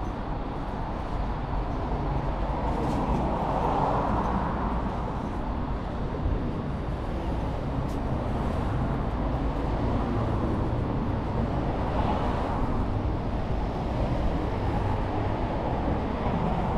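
Steady city street ambience: a continuous hum of road traffic.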